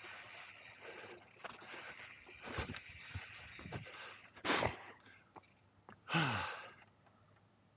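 Mountain bike descending a rough dirt singletrack: tyres rolling over dirt and pine needles, with scattered sharp knocks from rocks and roots. The rider breathes hard twice, a sharp breath about halfway through and a falling sigh about six seconds in.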